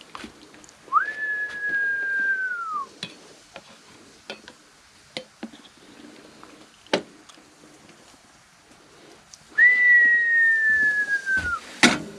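A person whistling two long notes, each about two seconds: a quick rise, a held note, then a slide down at the end. Light clicks of a metal slotted spoon against a saucepan, with a sharp ringing knock near the end.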